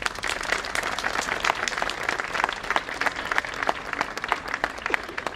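Audience applauding, many people clapping at once. The clapping thins out into fewer, scattered claps near the end.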